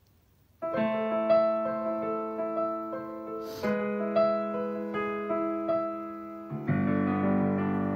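Digital piano played slowly: sustained chords under a melody line, each note ringing and fading, starting about half a second in, with the harmony changing twice.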